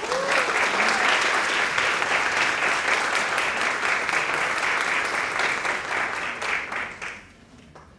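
Audience applauding for an arriving speaker, dense steady clapping that starts at once and dies away about seven seconds in.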